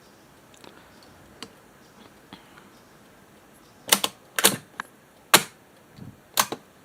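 Clicks and knocks of hands working on the open cassette deck: a few faint ticks, then about five sharp, loud clicks in the second half.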